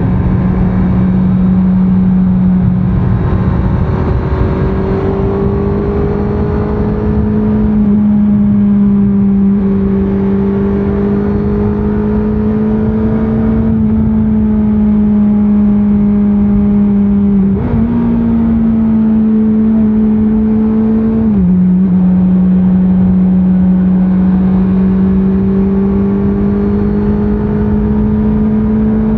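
2024 Honda CBR650R inline-four engine pulling under way at a fairly even pace, its pitch slowly creeping up with a few sudden steps. The pitch jumps up about 17 seconds in and drops back about four seconds later, as with a downshift and an upshift. Low wind and road rush runs underneath.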